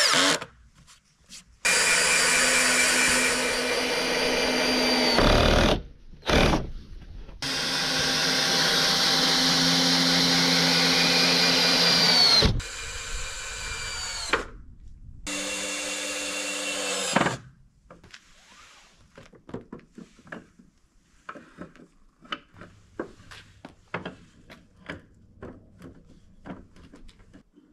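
Electric drill running into wood in three long bursts, its motor note dropping as each one stops. Light clicks and knocks of handling follow for the last ten seconds.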